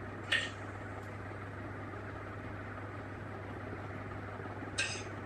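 UEC A-2 90 cm industrial ceiling fan running at full speed: a steady low motor hum with the even rush of its blades. Two brief hissy sounds come about half a second in and near the end.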